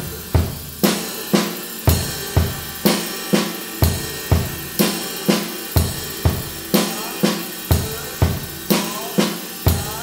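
Acoustic drum kit played as a steady, even groove of about two sharp strokes a second, with a cymbal ringing over it. It is a double-stroke coordination exercise: the right hand plays a cymbal while the bass drum and snare answer it.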